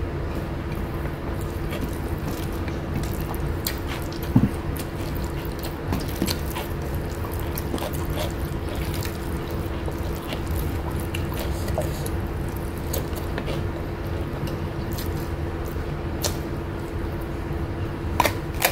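Close-miked eating sounds: fingers mixing rice on a plate, then chewing, with scattered wet mouth clicks. A crisp bite into a raw vegetable comes near the end. A steady low hum runs underneath.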